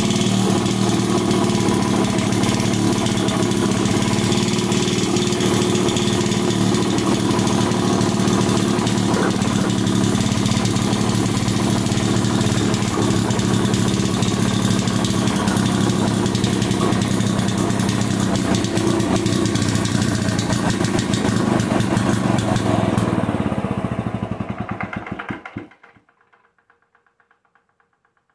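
1951 Homelite model DC generator's two-stroke engine running steadily and loud, on a freshly adjusted mixture and running well after 35 years of sitting. About 24 seconds in it winds down over a couple of seconds and stops.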